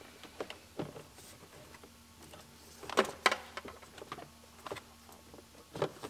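Scattered light clicks and knocks of a plastic heater duct being handled and fitted onto the bottom of the heater core cover, with two sharper knocks about three seconds in and another near the end.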